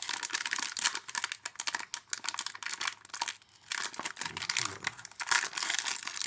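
Trading card pack's wrapper being torn open and crinkled, a dense run of quick crackles and rips.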